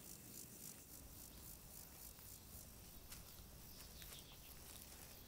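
Near silence: faint outdoor ambience, a soft high hiss with a few faint ticks.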